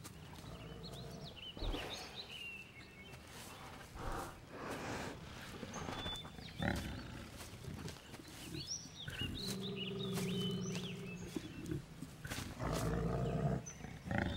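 Grizzly bear giving long, low rumbling growls, two of them in the second half, with high bird-like chirps and scattered crunching steps on dry leaves and pine needles around it.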